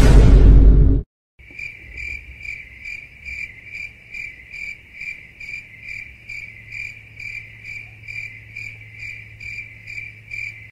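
A loud burst of about a second, then a cricket chirping steadily, an even chirp repeating about two and a half times a second, over a faint low hum.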